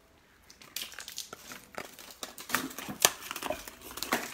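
A violin-shaped molded treat being peeled out of a soft silicone mold: a run of sticky crackles and crinkles, with one sharp snap about three seconds in.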